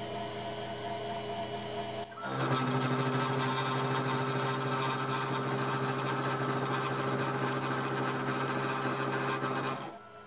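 MAXNC CNC mill spindle, driven by a treadmill motor, running with a steady hum. About two seconds in, the end mill starts cutting a metal plate and the sound gets louder and rougher, holding steady through the cut until it fades out near the end.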